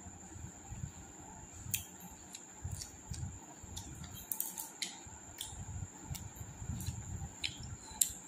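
Eating sounds: a dozen or so short, sharp mouth clicks and smacks at irregular intervals while chewing, over a steady thin high-pitched tone.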